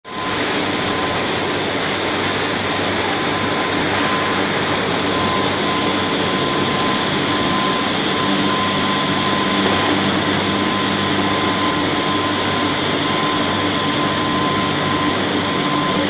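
Steady, loud industrial noise from a steel scrap-melting furnace running while material is charged into it, with a steady high-pitched tone and a lower hum running through it.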